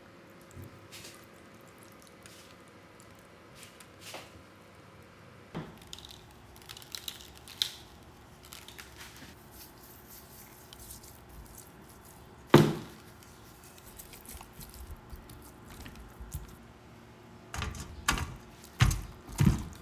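Quiet food-prep handling of raw pork belly: scattered light taps and rustles as salt is sprinkled and rubbed into the skin on a wooden board, one sharp knock a little past halfway, then a few heavier thuds near the end as the slabs are set into a wire-mesh basket.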